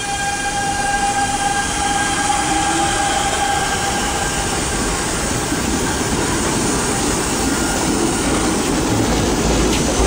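Siemens 3000 series electric multiple-unit train running past along the platform. A steady electric whine is heard for the first few seconds and fades, then the wheels rumble on the rails as the cars go by.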